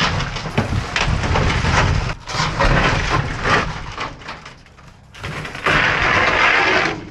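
Long aluminum scrap strips scraping and clattering against debris and the steel dumpster's edge as they are dragged out by hand, with many sharp knocks. A short lull, then a stretch of loud rasping scraping near the end.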